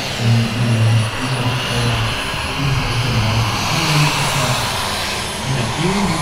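Engine and propeller of a model aircraft flying over the airfield, a steady drone.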